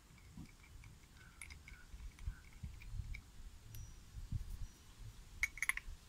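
Faint handling noise of a tape measure fitted with a homemade pencil clamp: scattered small clicks and taps and soft bumps as the pencil and clamp are fitted, with a quick run of sharper clicks near the end.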